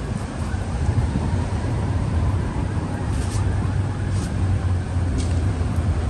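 Gale-force wind buffeting the microphone in a winter rainstorm: a steady deep rumble over the hiss of rain, with three faint short ticks in the second half.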